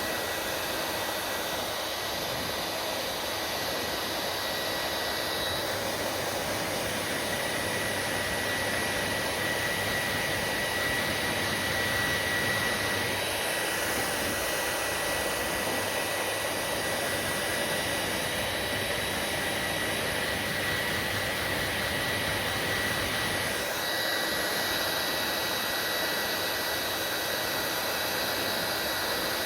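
Hair dryer running steadily: a constant rush of air with a thin high whine over it. The tone shifts slightly about halfway through and again near the end.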